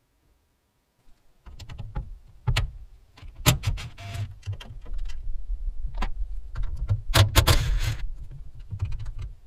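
Irregular clicks, knocks and rattles of hands and tools working on a pickup's tail light panel, over a low handling rumble, with a longer scraping rattle about seven and a half seconds in.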